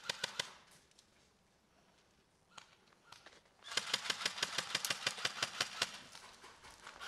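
Airsoft gun firing on full auto: a short burst right at the start, then a longer burst of about two and a half seconds from nearly four seconds in, each a fast run of sharp clicking shots.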